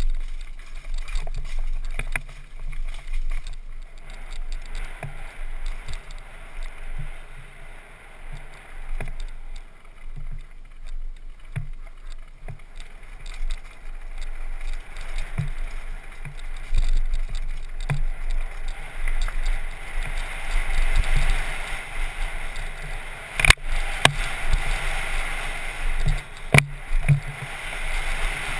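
Downhill mountain bike running fast over a dirt and rock trail: a steady rumble of wind and tyres on the camera microphone, with frequent rattling knocks from the bike over bumps and two hard jolts near the end.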